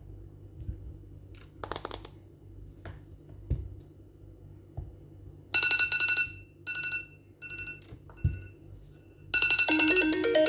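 A few light taps and clicks of a phone being handled, then an iPhone alarm tone going off: a series of rapidly pulsed electronic beeps, each burst shorter than the last. About nine seconds in, a louder melodic iPhone ringtone starts and keeps playing.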